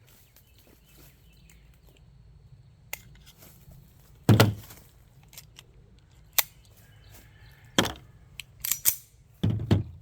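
.45 ACP Tisas 1911 pistol firing full metal jacket rounds at a steel concrete saw blade. The first and loudest shot comes about four seconds in, then several more shots follow in quick succession over the last two seconds.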